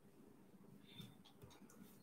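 Near silence: quiet room tone with a few faint clicks and rustles, about a second in and again around a second and a half in.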